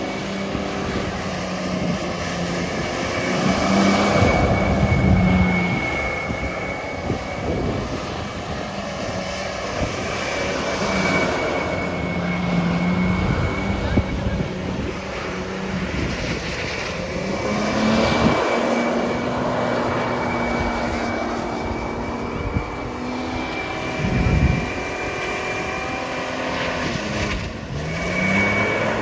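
An off-road 4x4's engine running under load as it drives on beach sand. The engine note rises and falls, with noisy swells of tyre and wind noise every several seconds.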